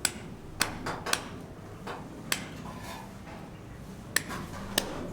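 Sharp, irregularly spaced knocks and clinks, about eight in five seconds, over a low steady hum.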